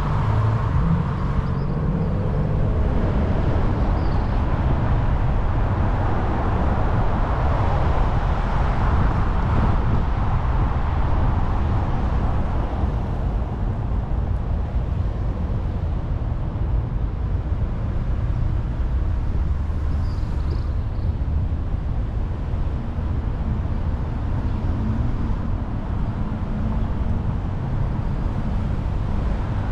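Steady low rumble of motor-vehicle road noise, swelling for a few seconds about a third of the way in, with a few faint high chirps.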